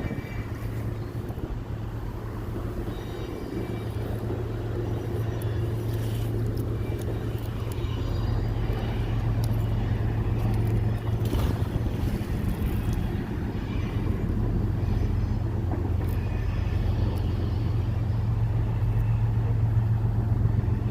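A steady low engine drone that slowly grows louder.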